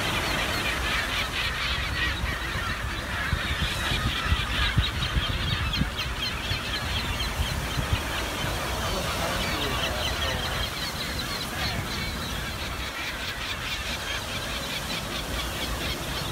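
A flock of gulls calling constantly, many short overlapping cries, over a steady low rumble.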